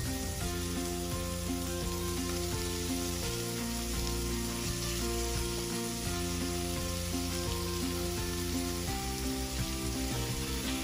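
Sliced raw beef sizzling as it is laid into a hot skillet of browned mushrooms, a steady frying hiss. Background music plays alongside.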